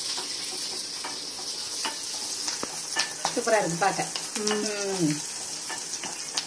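Onion and green capsicum pieces sizzling in hot oil in a kadai, with a steady hiss. A wooden spatula stirring them scrapes and clicks against the pan now and then.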